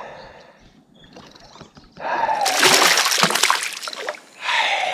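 A hooked fish thrashing and splashing at the water's surface during the fight. Loud splashing breaks out about two seconds in and eases off before picking up again near the end.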